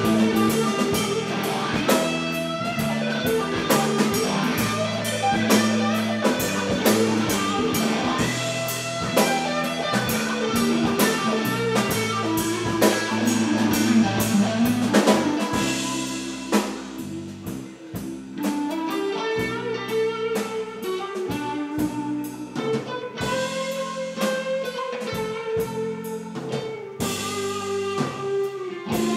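Live rock band playing an instrumental passage: electric guitars over a drum kit, with no vocals. The drumming thins out a little past halfway and picks up again near the end.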